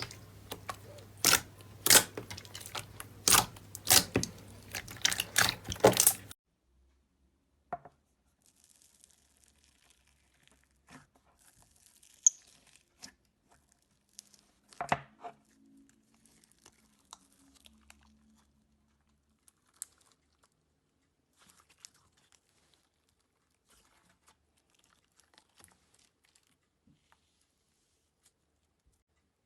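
Slime being squeezed and pressed, with a dense run of loud crackling clicks for about six seconds. It then falls mostly quiet, with scattered faint pops and a couple of short crinkly sounds.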